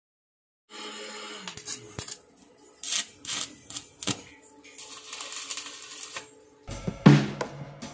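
Stick (arc) welder tack-welding steel weld mesh to a frame: sharp metallic clicks and short crackles of the arc, with a longer crackling sizzle about five seconds in. Drum-led music comes in loudly near the end.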